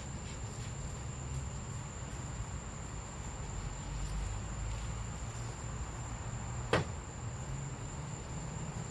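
Steady, high-pitched insect drone over a low outdoor rumble, with a single sharp click about two-thirds of the way through.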